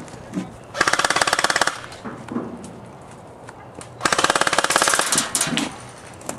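Airsoft gun firing two rapid full-auto bursts, each about a second long, the second about three seconds after the first.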